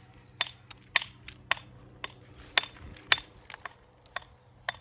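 Dry stone walling: sharp, irregular clacks of stone knocking on stone, about two a second, some with a short ring.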